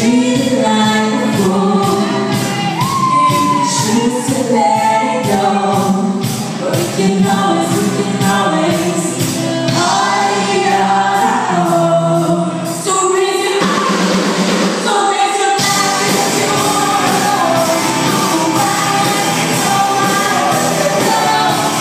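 Live pop band playing with a female lead singer, electric guitar, keyboards and a steady beat. Past the middle the beat and bass drop out for a couple of seconds, then the full band comes back in.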